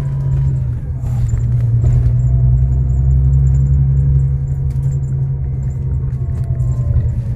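Steady low rumble of a bus engine and road noise, heard from inside the moving bus.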